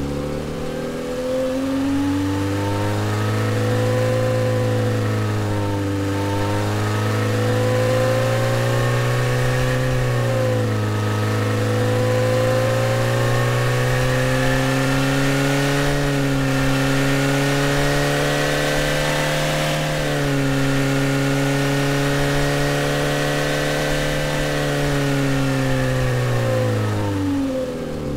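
Car engine sound resynthesized from a car recording by the AudioMotors plugin in drive mode, played like a gas pedal. The revs climb in the first two seconds, hold high with a few brief dips and rises in pitch, then wind down near the end.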